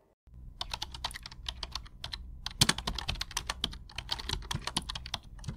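Rapid, irregular clicks and taps, several a second, over a steady low hum; they start about a quarter of a second in.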